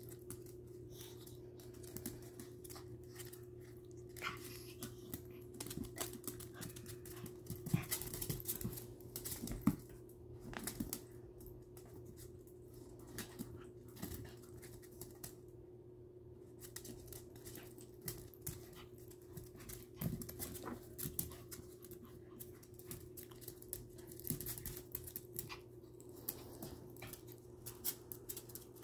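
Two small dogs play-wrestling on a hard floor: irregular scuffling and claw clicks, with panting. A steady low hum runs underneath.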